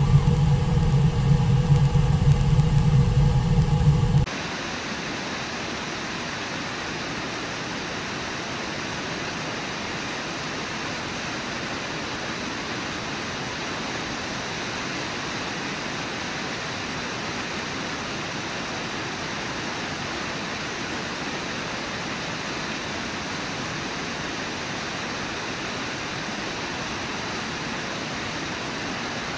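Steady rushing of river water from the Brooks River and falls. For the first four seconds a louder low rumble with a hum sits over it, then cuts off abruptly.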